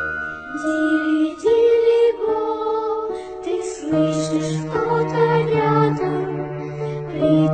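Background music: a slow lullaby melody sung by a high female voice over held low notes.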